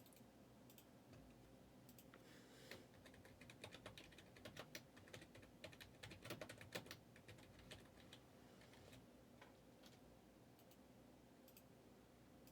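Faint typing on a computer keyboard: a run of quick key clicks, busiest in the middle, thinning out near the end.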